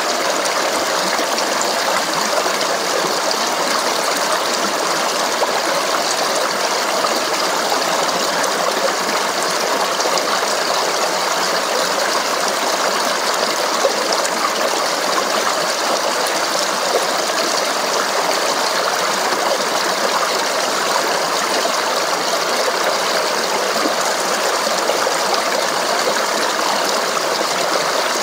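Water babbling and rushing steadily over rocks, an even, unbroken flow with no changes.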